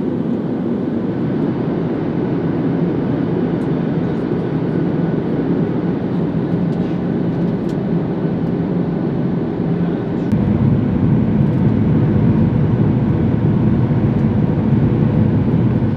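Steady cabin noise of a jet airliner in flight, a continuous rumble that gets louder and deeper about ten seconds in.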